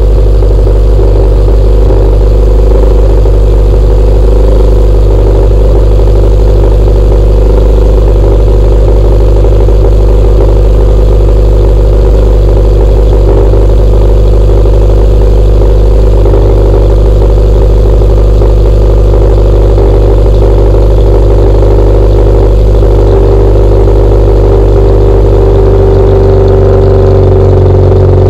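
Honda Civic Si's K24 2.4-litre four-cylinder idling steadily after a cold start, loud through an aftermarket downpipe exhaust.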